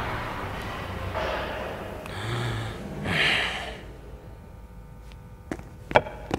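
A man breathing out heavily in three sighs or snorts, the strongest about three seconds in. Near the end come a few sharp clicks, the loudest about six seconds in.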